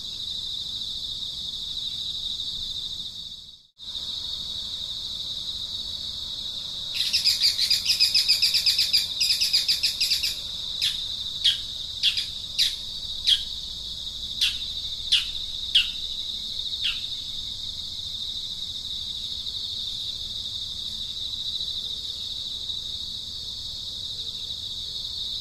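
Steady high insect drone under bird calls: a rapid chattering burst about seven seconds in, then a run of about nine single, sharply falling notes, each roughly half a second apart.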